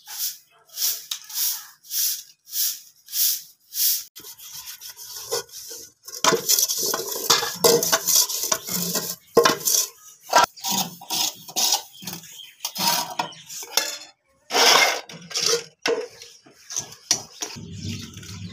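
Straw broom sweeping a concrete floor in short, regular swishes, about six strokes. Then, after about four seconds, stainless-steel pots and plates clatter and are scrubbed while being washed up at a tap.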